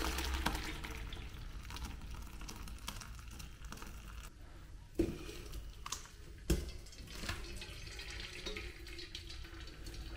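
Hot whey and curdled milk poured from a steel pot into a cloth strainer, splashing for the first couple of seconds, then a quieter trickle as the whey drains through the cloth. Two sharp knocks from the pot being tipped and handled, about five and six and a half seconds in.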